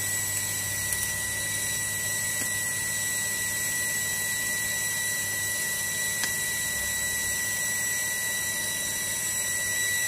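A steady high-pitched whine over a low hum, with a couple of faint clicks from a plastic washing-machine inlet hose coupler being worked onto a tap by hand.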